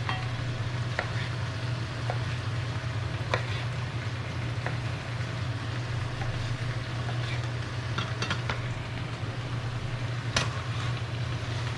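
Steady sizzle of vegetables and chicken frying in a covered pan, under a steady low hum, with a few sharp knife taps on a cutting board as a tomato is sliced into thin half-moons.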